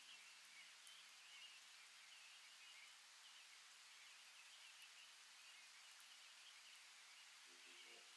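Near silence: a faint steady hiss with faint high chirping. Quiet music starts near the end.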